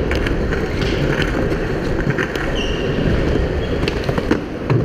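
Skateboard wheels rolling over smooth concrete close to the microphone: a steady, loud rumble with a few sharp clicks and knocks from the boards.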